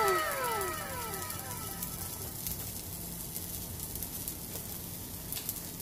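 Edited-in sound effect: several overlapping whistling tones gliding down in pitch, fading out within the first second and a half, followed by a steady crackling hiss.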